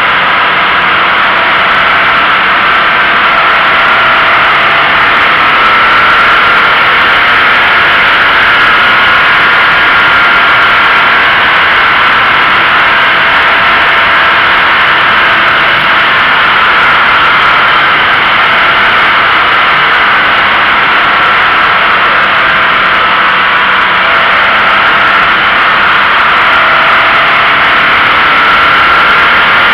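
Toyota GT86 driving at speed, heard through a camera mounted low on the car: a loud, steady rush of wind and tyre noise, with a faint note that rises and falls gently.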